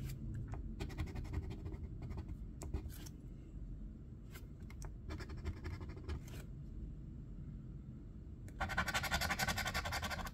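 A coin scratching the coating off a lottery scratch-off ticket. Light, scattered strokes give way to fast, louder scratching from about eight and a half seconds in.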